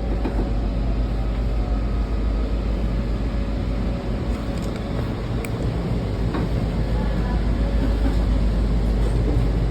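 Washington Metro railcar running, heard from inside the car: a steady low rumble with a faint steady whine, growing slightly louder near the end.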